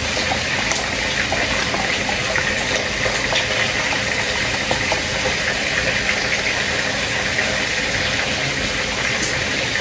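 A steady, even hiss with a few faint clicks.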